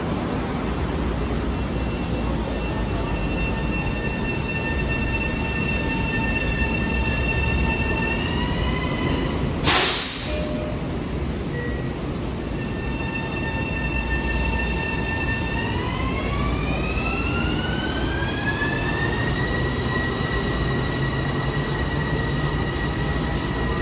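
Long Island Rail Road M7 electric multiple unit departing: the electric traction whine of several tones steps up in pitch as the train gathers speed, with a longer steady rise about two-thirds of the way through. About ten seconds in, a single short, sharp burst of noise is the loudest moment.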